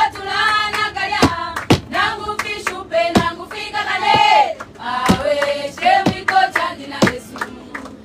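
A group of women singing a praise song together in unison, clapping their hands along with it. The sharp claps stand out above the voices.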